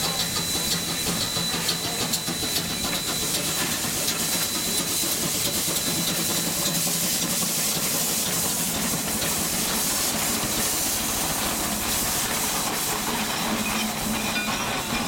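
Shay geared steam locomotive moving slowly at close range: steady steam hissing from the engine, with light clicking and clanking of the geared running gear and wheels on the rail.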